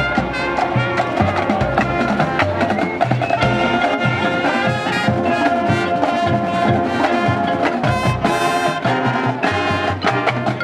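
Marching band playing, with the brass section holding sustained chords over steady drumline percussion.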